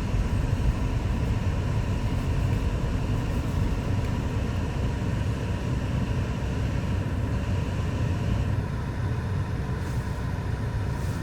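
Car driving on a snowy road, heard from inside: a steady low rumble of engine and tyres, with the higher road hiss thinning about eight and a half seconds in.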